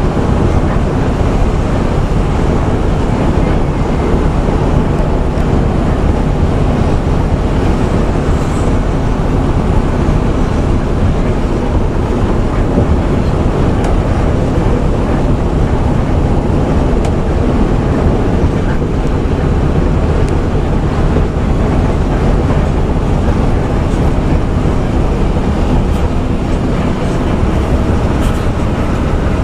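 Steady engine drone and road noise of a coach, heard from inside its cabin while it drives along a highway.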